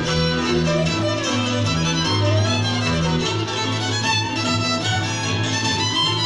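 Hungarian folk dance music led by fiddles over a pulsing string bass, playing steadily.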